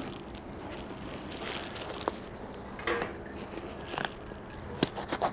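Plastic packing film crinkling and rustling as the wrapped lid of a clay tandoor is handled, with a few sharper crackles.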